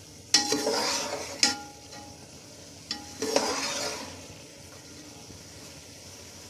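Shredded vegetables being stirred and tossed with a metal spatula in a large metal pot, sizzling in hot oil over medium-high heat: two bursts of stirring about a second long each, with the spatula clinking against the pot, then a faint steady sizzle.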